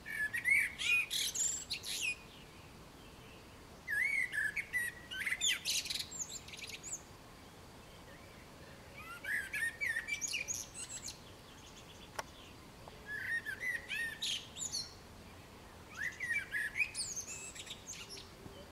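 Male common blackbird singing: five separate phrases a few seconds apart, each a low fluted warble that ends in a high, squeaky twitter.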